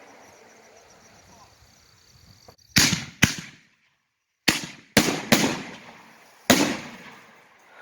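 Consumer artillery-shell fireworks going off: six sharp bangs with echoing tails, a pair about three seconds in, then three in quick succession and a last one near the end.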